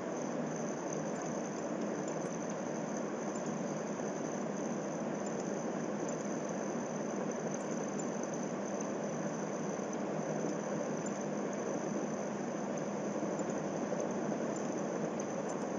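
Steady background room noise, an even hiss with a faint high-pitched whine running through it.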